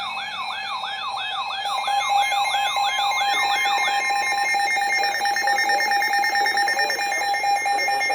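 Electronic emergency alert tones: a siren-like yelp that falls in pitch about three times a second over a steady tone, stopping about four seconds in, with rapid electronic beeping and a buzzing pulse joining and running on with the steady tone.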